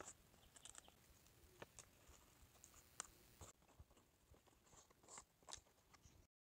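Faint crinkling and soft snapping of a fresh green leaf being handled and folded by hand, a few scattered crackles. The sound cuts off to silence near the end.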